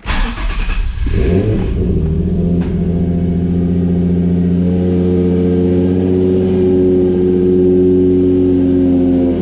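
Turbocharged Nissan 350Z's VQ35HR V6 comes in loud and sudden, then settles into a steady drone whose pitch climbs slowly as the car pulls away and gathers speed.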